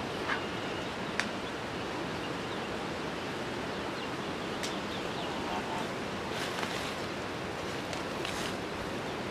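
Steady outdoor rushing noise, with a few sharp single clicks and snaps scattered through it, the clearest just over a second in and around four and a half seconds.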